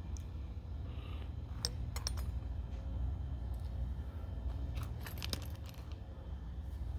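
Light metallic clinks and taps of small metal parts being handled, a few at a time, over a steady low hum.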